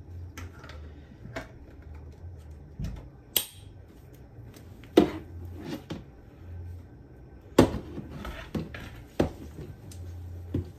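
Handling noises: scattered light clicks and knocks of small objects and packaging being moved and set down, with a few sharper knocks, the loudest about five and seven and a half seconds in.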